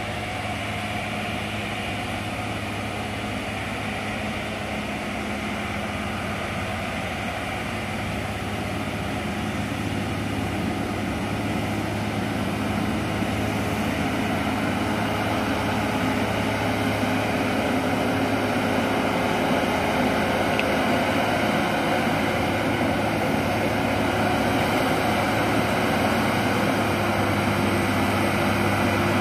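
Diesel engine of a box truck climbing a steep grade, a steady low drone that grows gradually louder as the truck comes up the hill toward the listener.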